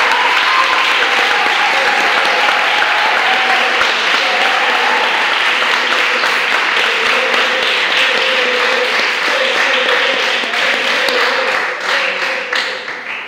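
Audience applauding steadily, with a few voices over the clapping; the applause dies down near the end.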